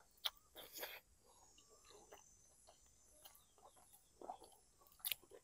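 Faint close-up chewing of stuffed squid with rice noodles: soft wet mouth sounds and a few sharp little clicks, the loudest near the start and again near the end, over a faint steady high hum of insects.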